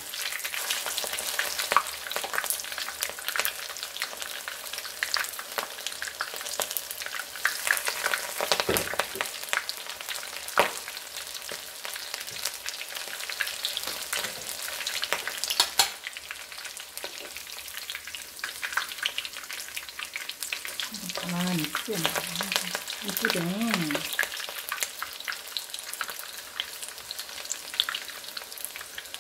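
Battered rapeseed flowers and leaves deep-frying in hot oil: a steady sizzle full of sharp crackles and pops.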